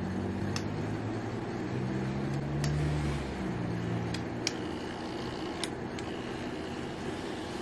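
Q-Redew handheld hair steamer running: a steady hum and hiss of steam, with a few light clicks.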